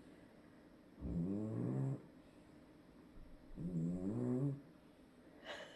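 French bulldog snoring noisily in its sleep: two long, pitched, rattling snores about three seconds apart, each lasting about a second.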